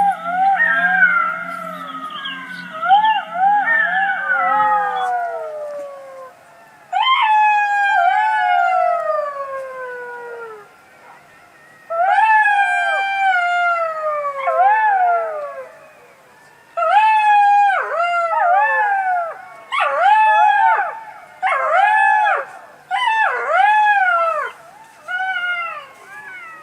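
Jackals howling: wailing calls that rise and then slide down in pitch, several voices overlapping at first, followed by long falling wails and, near the end, a quick series of shorter rising-and-falling yipping cries.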